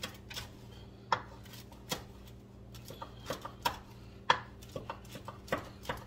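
Knife cutting baked baguette into cubes on a cutting board: irregular sharp knocks of the blade hitting the board, about two a second.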